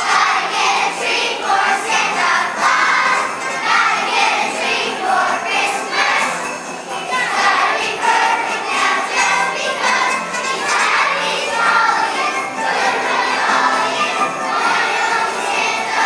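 Children's choir singing a Christmas song over music, with jingle bells ringing steadily throughout.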